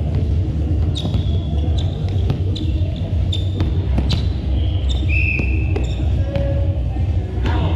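Noisy crowd scene over a steady low rumble, with scattered sharp knocks and thumps and a few short, high-pitched tones, one near the start and one about five seconds in.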